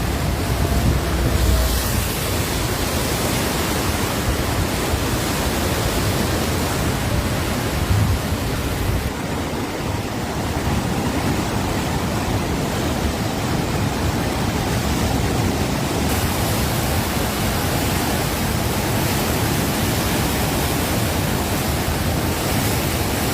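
Steady rush of heavy floodwater pouring through the open sluice gates of the Kosi Barrage, a continuous noise with no breaks.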